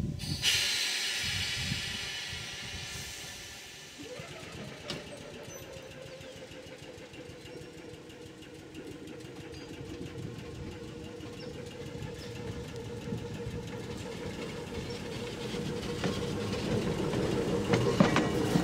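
Sacramento Northern electric interurban car: a hiss of air starts just after the beginning and fades within a few seconds. Then a steady hum with a held tone sets in and grows louder as the train starts rolling past.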